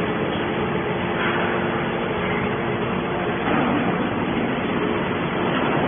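Horizontal hydraulic scrap-metal baler running: a steady mechanical din with a faint constant hum.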